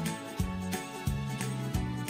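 Upbeat background music with a steady beat, about three strikes a second, over a moving bass line.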